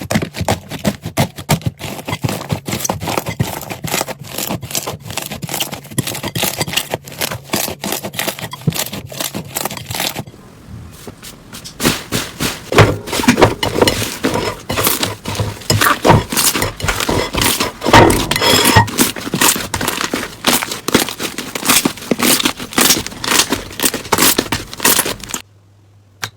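Slime being squeezed and pressed by hand, giving dense crackling and clicking pops. The sound changes about ten seconds in to a louder, crunchier crackle, then drops out briefly near the end.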